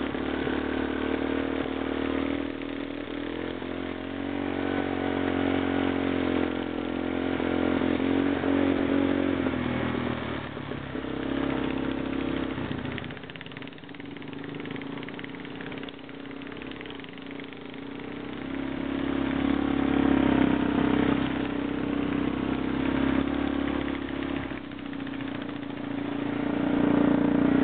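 ATV engines running on a dirt trail ride, their pitch rising and falling with the throttle. They ease off about halfway through and rev up again a few seconds later.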